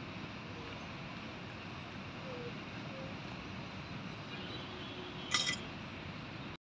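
A small stainless-steel utensil clinks once, briefly, about five seconds in, over a steady background hiss; the sound cuts off suddenly near the end.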